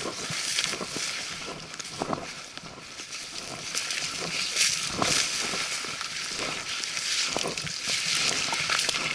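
Dense brush and branches swishing and scraping against a hiker as he pushes through on foot, with frequent sharp clicks and snaps of twigs and hiking poles.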